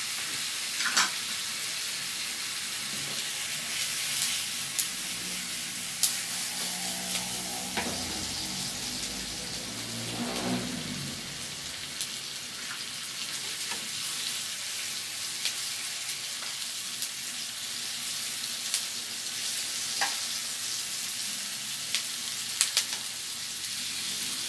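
Sliced pork belly frying in butter in a non-stick pan, a steady sizzle with occasional sharp clicks.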